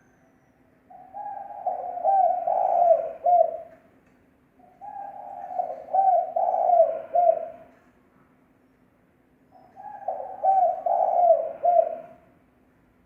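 Spotted dove cooing: three phrases of several deep coos each, about three seconds long, with pauses of a second or two between them. A faint steady low hum runs underneath.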